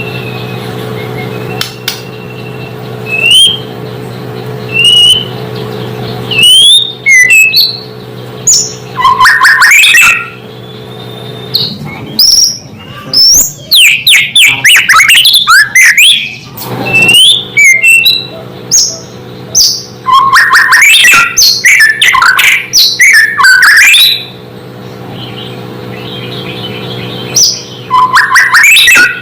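White-rumped shama (murai batu) singing: clear whistled notes at first, then loud phrases of rapid, sweeping notes and trills with short pauses between them.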